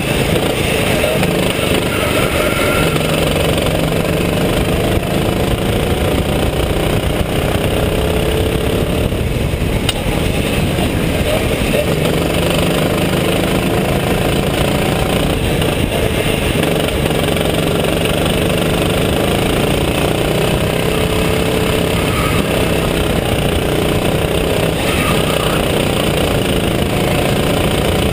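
Go-kart engine heard on board, running hard through a lap, its pitch rising and falling repeatedly as the kart accelerates out of corners and lifts off for the next one.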